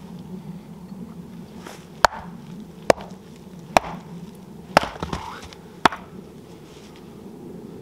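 Axe chopping into a firewood round on a chopping stump: five sharp strikes, about one a second.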